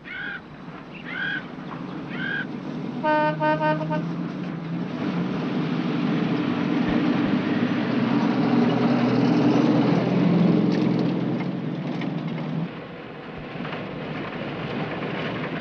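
A vehicle horn tooting in a quick series of short blasts, then a Land Rover engine running steadily for several seconds before the sound drops away near the end.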